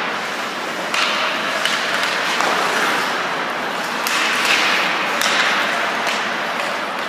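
Ice hockey skates scraping and carving on the ice, with sharp clicks and taps of sticks and puck every second or so, in an indoor ice rink.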